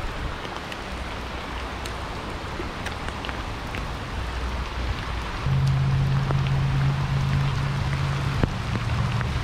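Rushing water of a flooded creek pouring over rocky rapids, with rain falling: an even wash of water noise with scattered light ticks. About halfway through, a steady low hum comes in under it.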